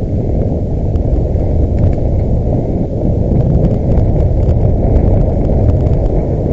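Wind buffeting a helmet-mounted camera's microphone over the rumble of a mountain bike rolling fast downhill on dry, sandy dirt, with a few faint clicks.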